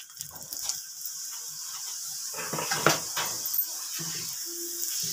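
Oil sizzling steadily on a hot nonstick tawa under a rice-flour roti, with a few knocks and scrapes against the pan, the loudest a bit past halfway.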